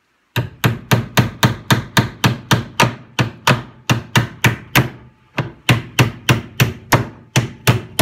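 Hammer driving nails by hand into an OSB (chipboard) beehive box: a steady run of sharp blows, about three a second, with a short pause about five seconds in before the hammering resumes.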